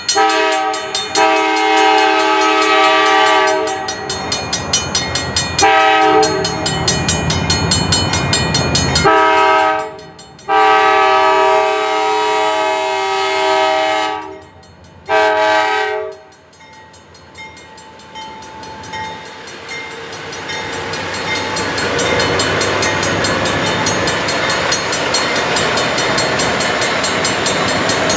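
The lead locomotive, a CN GE C40-8W, sounds its multi-tone chord horn in a series of blasts, mostly long with shorter ones between, while it approaches the crossing. It stops after about 16 s, and the rumble of the passing locomotives' engines and wheels on the rails swells and holds. A grade-crossing warning bell rings steadily throughout.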